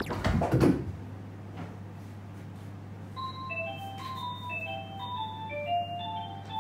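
A few heavy thumps in the first second as a cat jumps and lands on a table, then light background music with a bell-like, music-box melody starting about three seconds in.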